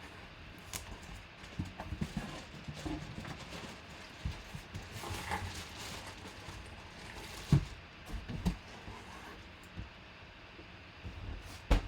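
A cardboard box being handled and opened to unpack a full-size football helmet: scattered knocks, scrapes and rustling, with two sharp thumps, one a little past halfway and one near the end.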